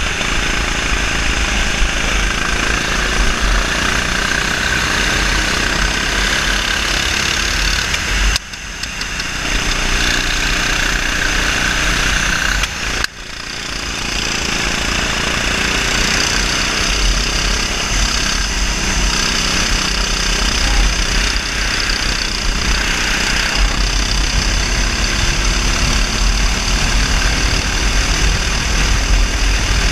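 RT8 kart's 390cc single-cylinder four-stroke engine running at racing speed, heard onboard. Its sound drops off sharply twice, about eight and thirteen seconds in, then builds back up each time.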